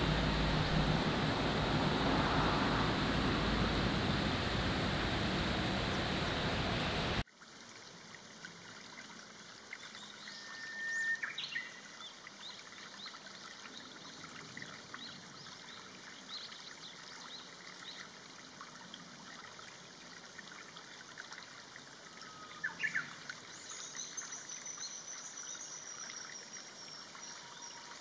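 Outdoor ambience: a steady rushing noise that cuts off abruptly about seven seconds in, followed by a quiet background with a couple of short bird chirps and a faint high whistle near the end.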